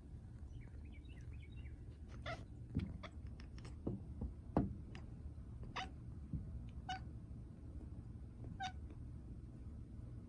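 A domestic cat chattering at a bird it has spotted: a quick run of short clicking chirps about two to four seconds in, then single short chirps a second or two apart.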